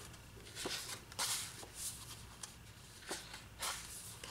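Sheets of 6x6 patterned designer paper being turned over one after another, giving a few soft swishes of paper sliding against paper.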